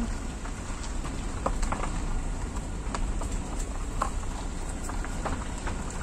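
Outdoor ambient noise: a steady low rumble and hiss with scattered light clicks and ticks.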